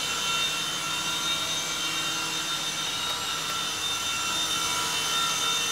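Small two-channel RC toy helicopter hovering, its electric motors and coaxial rotors making a steady high whine and buzz.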